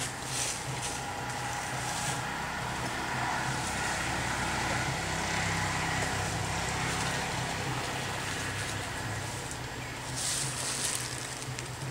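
A motor vehicle's engine and road noise, swelling to a peak midway and easing off again, over a steady low hum, with short crackles near the start and near the end.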